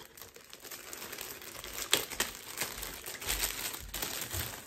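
Clear plastic packaging bag crinkling as it is worked open by hand, with a sharper crackle now and then.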